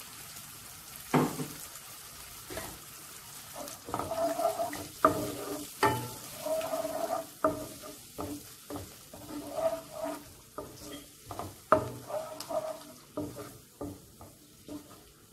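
A spatula stirring and scraping chilli paste around a nonstick kadai, with several sharp knocks against the pan, over a low sizzle of the paste cooking in oil with a little water added. It fades toward the end.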